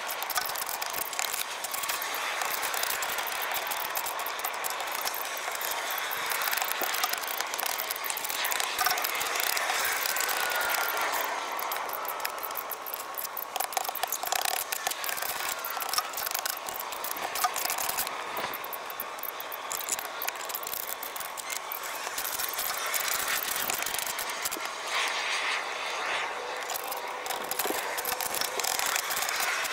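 Snow and ice crunching and scraping: a steady crackle made of many small clicks, with no break in it.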